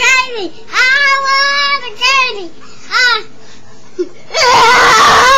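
A young child's voice in a string of high, drawn-out sing-song notes, then a loud, harsh shriek about four seconds in.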